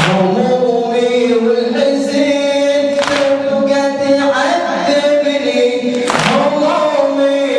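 A Shia latmiyya mourning chant: several voices chanting together unaccompanied in a slow, held melody, with a sharp hit about every three seconds in time with the chant.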